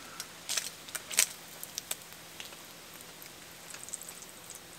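Kitchen tongs clicking and tapping against a cast iron frying pan as bacon is lifted out, a handful of sharp clicks in the first two seconds, over a faint steady hiss.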